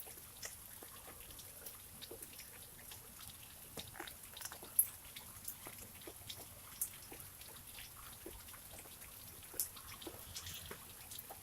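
Rain during a winter storm: irregular drops and drips ticking onto surfaces over a faint steady hiss, with a few louder single drops.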